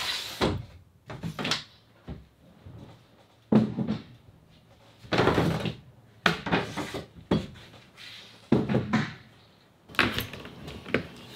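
A series of separate knocks and thuds as a person comes in through a sailboat's wooden companionway hatch and moves about the cabin.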